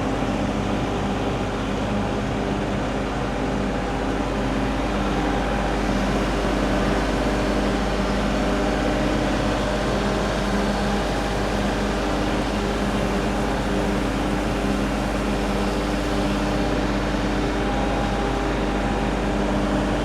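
Case TR320 compact track loader running, its diesel engine loud and steady throughout.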